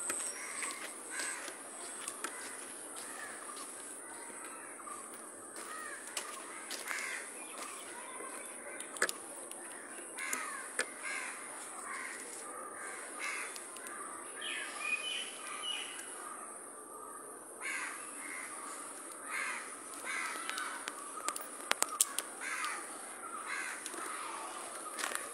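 Crows cawing again and again over steady outdoor background noise, with a few sharp clicks, the loudest about nine and twenty-two seconds in.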